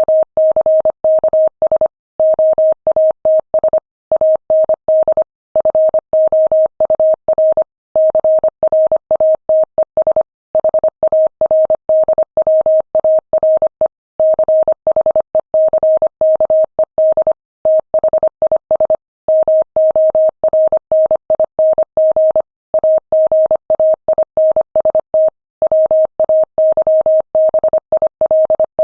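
Morse code sent at 25 words per minute: a single steady tone keyed on and off in rapid dots and dashes, with short pauses between words.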